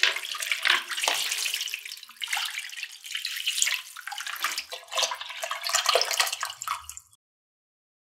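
Water being poured and splashing, an uneven rushing splash that stops abruptly about seven seconds in.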